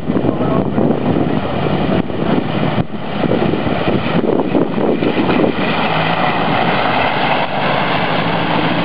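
Early Series I Land Rover wading through a river ford: its engine running under the steady rush and splash of water pushed aside by its front and wheels.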